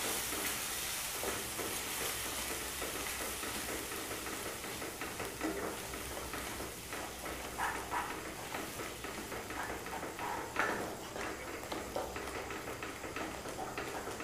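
Tomato purée and chilli powder frying in oil in a pan, a steady sizzle, while a wooden spatula stirs it with soft irregular scrapes against the pan.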